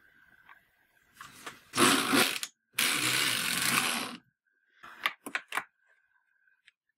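Metal needles of a Severyanka-type domestic knitting machine being handled in the needle bed and pushed forward to working position with a needle-selector comb. A rasping, scraping noise lasts a couple of seconds, then a quick run of sharp clicks comes about five seconds in.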